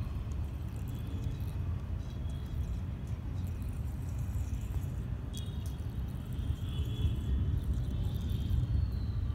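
Steady low rumble of water draining out of a tank through a perforated steel drain strainer, where a whirlpool forms over the outlet.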